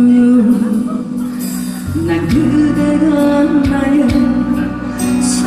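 A singer holds the last note of a slow Korean song over a backing track. The accompaniment then carries on with a wavering melody line over a steady bass.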